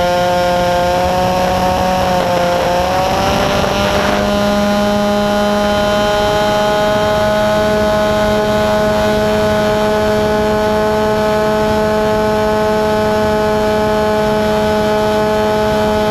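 A model aeroplane's motor and propeller running hard through its take-off run and climb, heard from a camera mounted on the plane: a steady buzzing tone that wavers slightly in the first few seconds and then holds a constant pitch, over a rush of wind.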